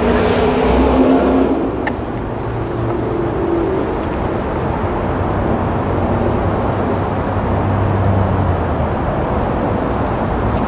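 A distant engine running, its drone shifting in pitch in the first few seconds, over a steady outdoor rush of noise.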